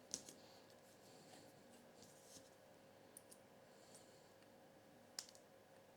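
Near silence: faint workshop room tone with a low steady hum and a few faint clicks, the clearest just after the start and about five seconds in.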